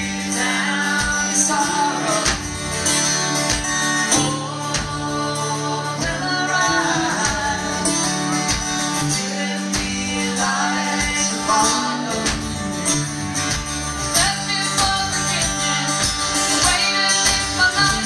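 Live country band playing, with strummed acoustic guitars and drums, and a woman singing lead.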